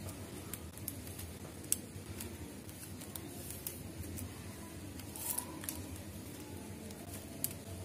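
Plastic basket wire being handled and threaded through its loops during weaving: scattered small, sharp clicks and ticks as the stiff strands slip and snap against each other.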